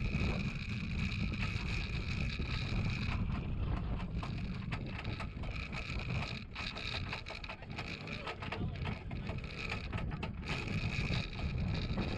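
Light metal pony cart rattling and jolting as a miniature pony pulls it over bumpy dirt ground, with many small knocks over a steady low rumble.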